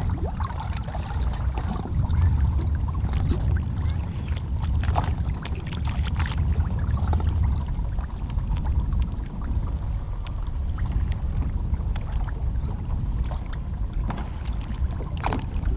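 Underwater sound picked up by a camera held below the surface: a steady muffled low rumble of water against the housing, with scattered clicks and crackles.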